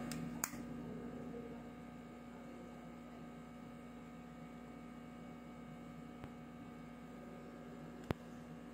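Steady low hum, with a small click about half a second in and a sharper single click near the end as a plastic makeup compact is handled.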